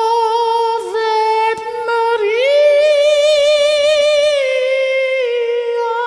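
A puppet character's voice singing long, high held notes with a wavering vibrato. The pitch steps up a little past two seconds in and eases back down about two seconds later.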